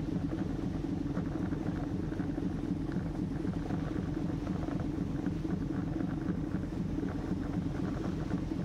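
A car ferry's engines running at a steady cruising drone while the ship is underway, heard from the open upper deck.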